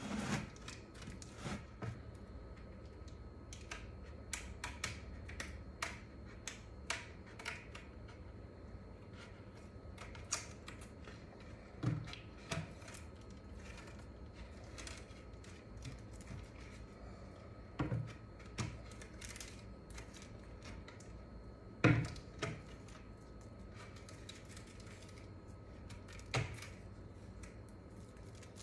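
Quiet handling clicks and ticks as vinyl wrap is trimmed from a wooden drum shell with a razor blade and the shell is turned on a cutting mat. A few dull knocks of the shell against the table, the loudest about two-thirds of the way through.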